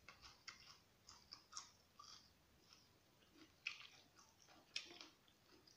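Faint crunchy chewing of a bite of raw leek stalk, with a few sharper clicks that fit a spoon and chopsticks knocking in a china bowl as the noodles are stirred.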